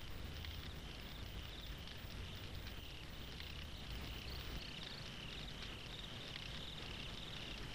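Crickets chirping steadily over a low background rumble.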